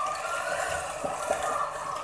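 Electric hand mixer running, its beaters creaming a bowl of butter; the motor's whine wavers up and down in pitch as the load on the beaters changes.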